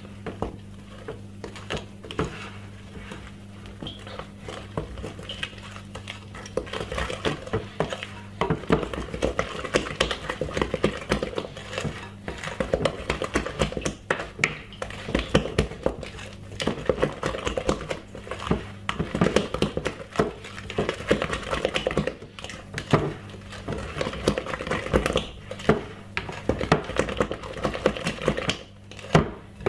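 Wooden spoon beating thick cake batter in a glass mixing bowl: quick, uneven strokes that scrape and knock against the glass, busier after the first few seconds.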